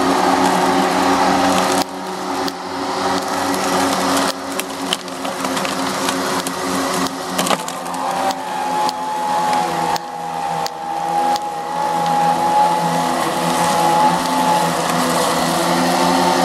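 Battery-powered electric push mower running over grass with a steady hum, a high whine coming in about halfway and fading near the end, and repeated clunks and clicks throughout: the whining and clunking that show the mower is not running right.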